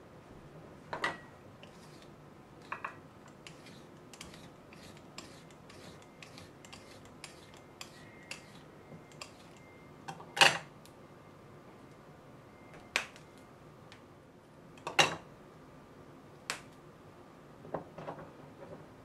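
A vegetable peeler scraping down asparagus stalks in a quick run of light clicks, then a few louder sharp knocks on a plastic cutting board as the stalks are cut and the tools are handled.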